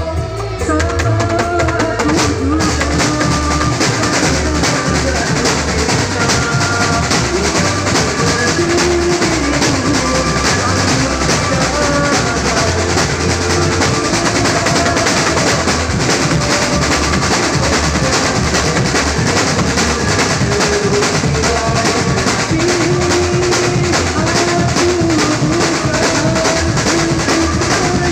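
Band music in an instrumental passage: a drum kit plays a steady, busy beat under a wavering melody line, and the drumming gets fuller about two seconds in.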